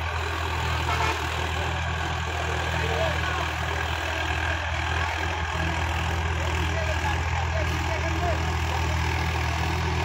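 Tractor engine running steadily, pulling a rotary tiller through the field.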